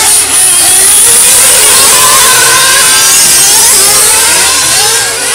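Several 1/8-scale nitro RC cars' small glow-fuel engines running loud at high revs, overlapping, their pitch rising and falling as they accelerate and lift through the corners.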